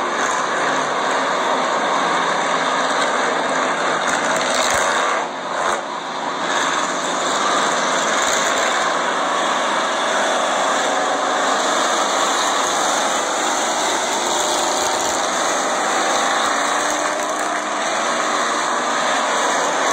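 A field of purestock race cars running laps on an oval track, their engines making a steady, loud din.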